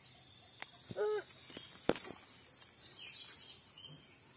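Steady high drone of crickets and other insects, with a few faint bird chirps. A brief pitched sound comes about a second in, and a single sharp click just before the two-second mark.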